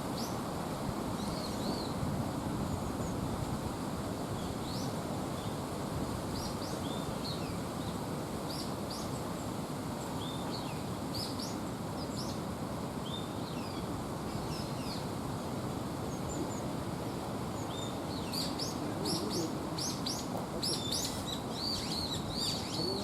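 Small birds chirping in short high notes, scattered at first and coming thick and fast in the last few seconds, over the steady rush of a small brook.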